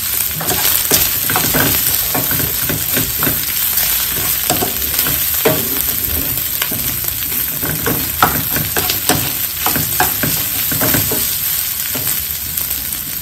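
Ground pork for hubad longganisa sizzling in a wide non-stick frying pan over lowered heat while a spatula stirs it, with irregular scraping strokes of the spatula against the pan over a steady sizzle.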